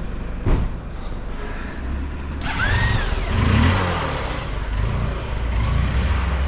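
Car engine running with a low rumble and a sharp thump about half a second in. From about two and a half seconds in the engine grows louder and noisier, as if the car is pulling away.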